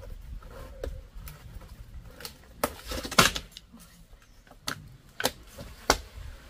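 Scattered sharp clicks and crackles as a jackfruit is gripped and pulled off its short stalk on the tree trunk, with the loudest cluster of snaps about three seconds in.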